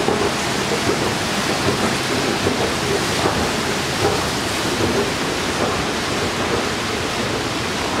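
Water fountain splashing steadily, its jets falling into the basin as a constant rushing hiss.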